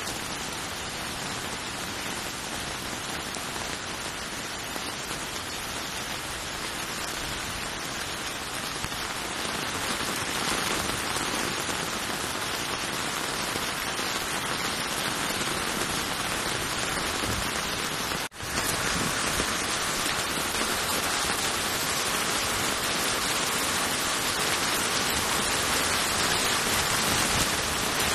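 Heavy rain pouring onto a flooded street, a steady hiss that grows louder about ten seconds in. It breaks off for an instant about two-thirds of the way through.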